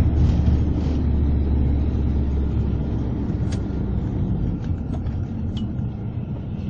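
Low, steady rumble of a moving bus's engine and road noise, heard from inside the cabin; the deepest part of the rumble eases a couple of seconds in, and a few light clicks follow.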